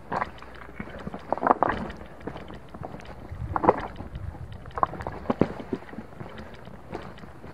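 Footsteps on bare rock with clothing and backpack rustling close to the microphone: irregular small clicks and a few louder scuffs and scrapes.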